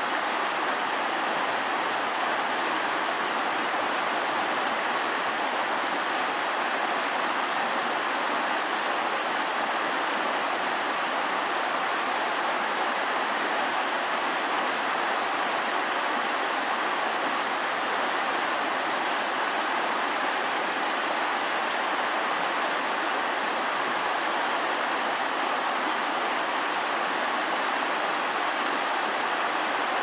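Shallow river rushing over stones in a steady, even wash.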